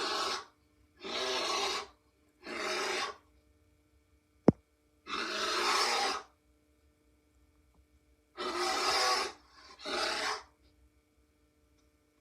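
Rhinobear creature sound effect: a series of six short, harsh rasping growls, each about a second long, with silent gaps between them. A single sharp click about four and a half seconds in is the loudest sound.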